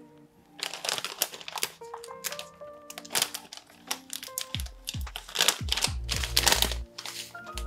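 A plastic ingredient packet crinkling in repeated rustles as it is handled and shaken over the pan. Background music plays underneath.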